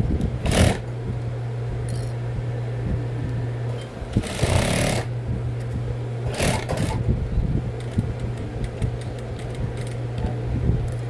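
Industrial single-needle sewing machine stitching through a fabric bag handle, with a steady motor hum throughout and a few short bursts of noise as the fabric is fed and handled.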